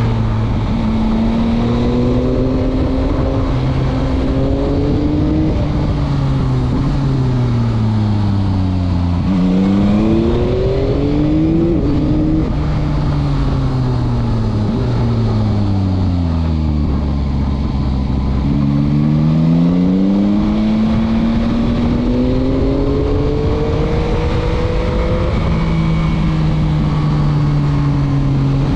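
Yamaha MT-09's 890 cc three-cylinder engine heard from the rider's seat, its revs falling as the bike slows for a corner, climbing sharply about ten seconds in, dropping to a low steady pitch, then climbing again and holding near the end.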